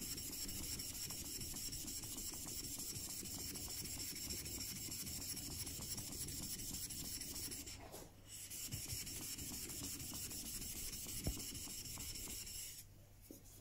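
Steel back of a chisel being lapped flat on a wet 8,000 grit waterstone, scrubbing back and forth in a steady gritty rub. It pauses briefly about eight seconds in and stops shortly before the end.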